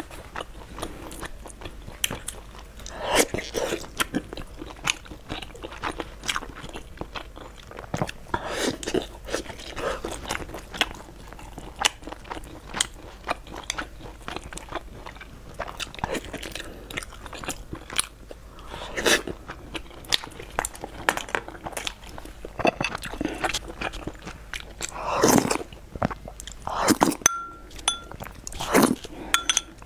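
Close-miked mukbang eating of braised fatty pork: wet chewing, biting and lip-smacking noises, with a light clink near the end.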